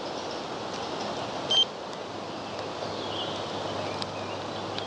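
Outdoor woodland ambience: a steady rushing noise, with one short, loud, high-pitched chirp about a second and a half in and fainter chirps near the end.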